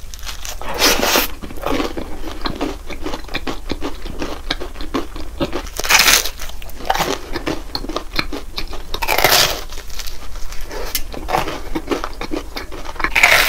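Crisp, caramelised croissant-waffle (croffle) topped with Nutella and banana crunching as it is bitten and chewed, close to the microphone. There are four loud crunching bites, with continuous crackly chewing between them.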